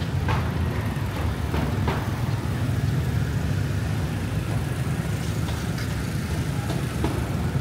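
Street ambience on a busy city street: a steady low traffic rumble, with a few faint short clicks.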